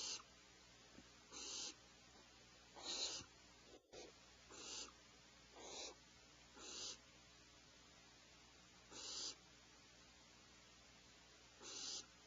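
Owlets giving harsh, hissing snore-like begging calls, about eight short rasps spaced a second or two apart, the loudest about three seconds in.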